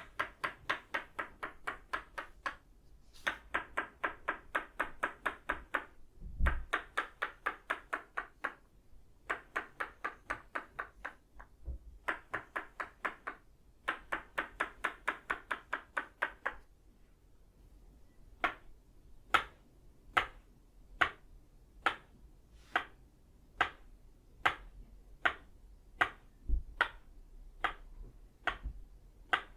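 Tok Sen wooden mallet striking a wooden peg, both of itauba wood, in quick rhythmic runs of about seven taps a second, each run lasting about two seconds with short breaks between. A little past halfway the rhythm changes to slower single taps, about one and a half a second.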